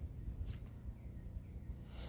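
Low, uneven rumbling noise on the microphone, with a faint click about half a second in.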